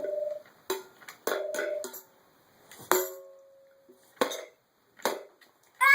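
Short pops, taps and brief pitched notes coming through a battery-powered microphone, with a clear ringing tone that holds for about a second around the middle.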